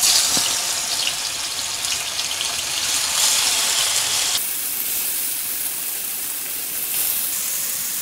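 Marinated pomfret pieces sizzling in hot coconut oil in a frying pan as they are laid in one after another. It is a loud, even hiss, loudest right at the start and changing abruptly about four and a half seconds in.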